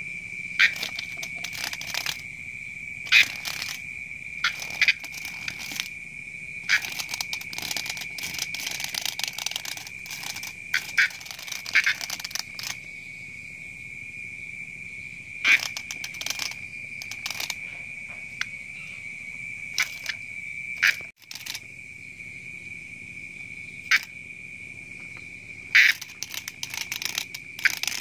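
Steady high-pitched chirring of night insects, crickets, with scattered sharp taps and knocks of kittens' paws on a wooden plank floor as they pounce on a cockroach. The taps are busiest a third of the way in.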